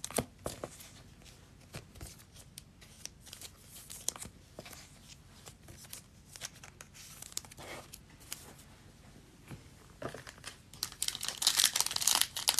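A few faint scattered clicks and rustles, then from about ten seconds in the wrapper of a Panini Prizm football card pack being torn open and crinkled, a dense loud crackling.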